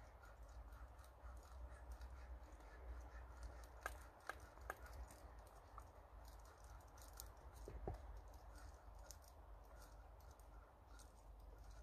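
Faint scraping and shaving of a blade carving a wooden pole, with three sharp clicks in quick succession about four seconds in and one more near eight seconds.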